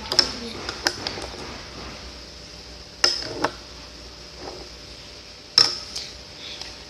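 Slime being stirred in a container, the stirrer knocking sharply against the container's side about five times.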